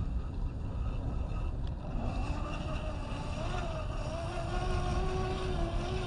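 Electric whine of an RC crawler's brushless motor and drivetrain (Fusion SE 1800kv). From about two seconds in, the whine rises and falls in pitch as the throttle changes, over a steady low rumbling noise.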